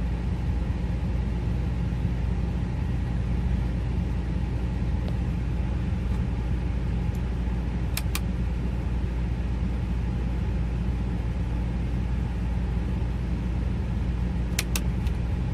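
Chevy Avalanche V8 engine running steadily with a low hum, heard from inside the truck's cab. Two pairs of sharp clicks come about halfway through and again near the end.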